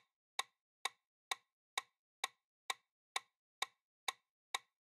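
Quiz countdown timer sound effect ticking: short, sharp clock-like ticks about twice a second, about ten in all, with silence between them.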